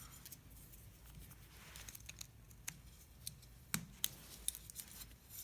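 Faint, scattered small clicks and ticks of a pick and metal terminal pins being worked out of a plastic GM PCM wiring connector, over a faint steady low hum.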